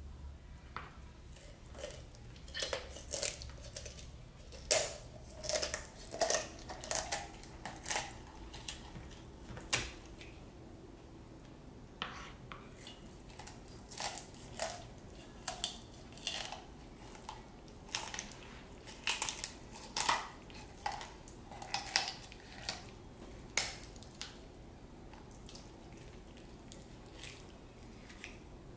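Kitchen poultry shears cutting along a raw whole chicken's backbone: a run of sharp snips and crunches as the blades close through bone, coming in clusters with short pauses between.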